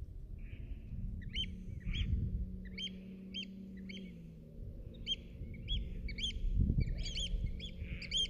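A bird calling over and over in short rising-and-falling chirps, about two a second, starting about a second in, over a low outdoor rumble.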